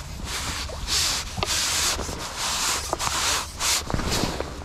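A hooked skimmer bream splashing at the surface and in the landing net as it is netted and lifted out, with water running off the mesh. The sound comes in several short, splashy rushes of noise.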